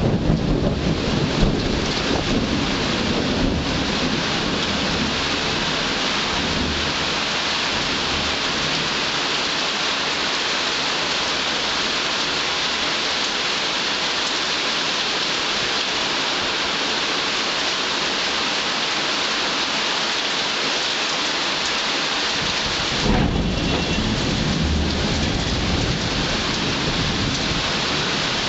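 Heavy rain falling steadily during a thunderstorm. Thunder rumbles and crackles as it dies away in the first few seconds, and a new peal breaks suddenly near the end and keeps rumbling.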